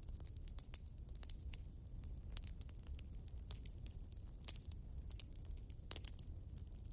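Wood fire burning in a fireplace: irregular sharp crackles and pops from the burning logs over a low, steady rumble of the flames.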